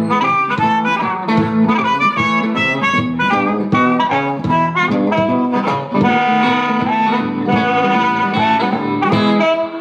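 Live blues instrumental: harmonica playing held, bending notes over a picked guitar, with no singing.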